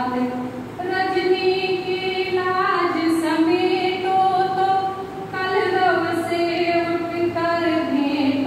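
A woman singing the lines of a Hindi poem solo, with no instruments, in a slow melodic recitation. She holds long notes and takes short breaths between lines.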